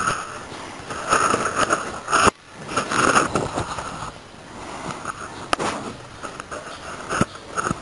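Young fighting cockerels scuffling in irregular noisy bursts, with a few sharp clicks. The sound breaks off abruptly a little over two seconds in, then resumes.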